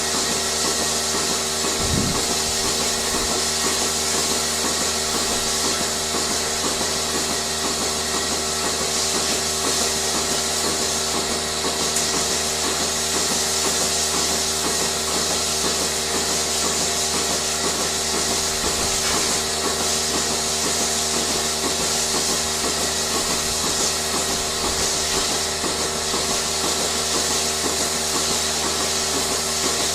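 Steady machinery hum and hiss with a fast, regular pulsing throughout, typical of a milking system's vacuum pump and pulsators.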